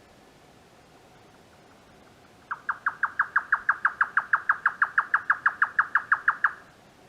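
Grey nightjar singing its rapid 'kyo-kyo-kyo' chopping-cucumber song: a fast, even run of about seven or eight sharp notes a second. It starts a few seconds in and lasts about four seconds.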